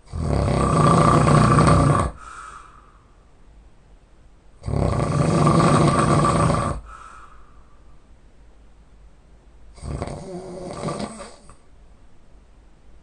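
A man snoring heavily: two loud, rasping snores about two seconds long and five seconds apart, each trailing off into a short faint breath, then a weaker snore about ten seconds in.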